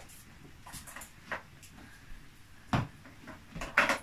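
Scattered light clicks and knocks of plastic toy train track pieces being handled and fitted together, with one louder knock a little under three seconds in.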